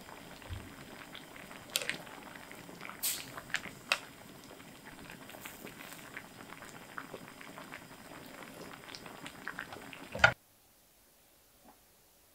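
A pot of liquid boiling, bubbling steadily with small scattered pops. About ten seconds in a sharp click, the loudest sound here, and then it stops abruptly.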